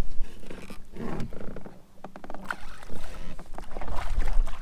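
Scattered knocks and rattles against a plastic kayak as a bass is handled on a measuring board, over a low steady rumble.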